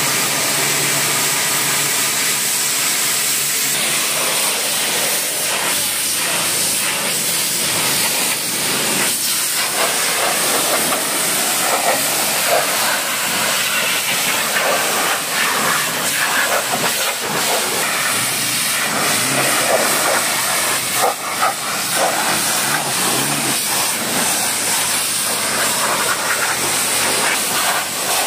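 High-pressure washer jet spraying water onto a car's panels and wheels: a steady, loud hiss with spattering that shifts as the jet moves over the bodywork.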